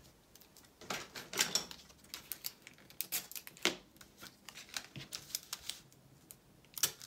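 Paper and washi tape being handled, then a plastic card rubbed along the tape to press it down onto the paper: irregular short scrapes, rustles and taps.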